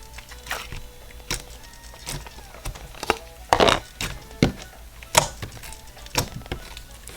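Floam slime with purple floam beads being squeezed and pressed by hand, giving irregular crackles and pops as the beads and trapped air pockets burst, loudest about halfway through.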